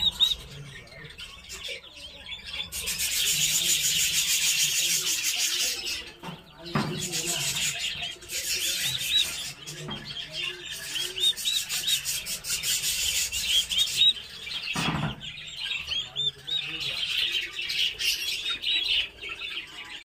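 A group of turkey poults peeping, many quick high chirps overlapping, thickening into a dense chorus for several seconds at a time. Two dull thumps, near seven seconds and near fifteen seconds.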